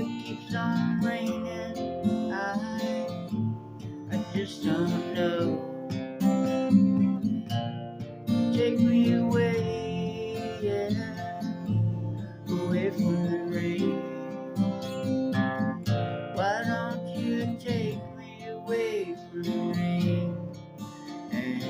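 Acoustic guitar music: strummed chords with a melody line moving over them.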